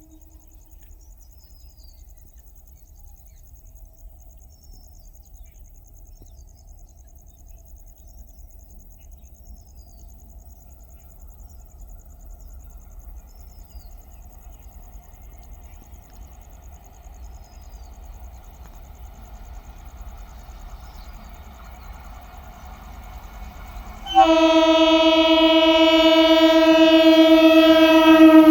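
Indian Railways train horn: a single long, loud blast about 24 seconds in, holding a steady pitch and dipping in pitch right at the end. Before it, a low train rumble slowly grows under a faint high steady tone and a few faint chirps.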